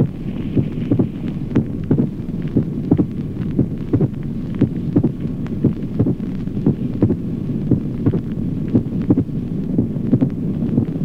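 Heart sounds heard through a stethoscope, a regular heartbeat in which the second heart sound is followed at once by an extra clear sound: a pericardial knock.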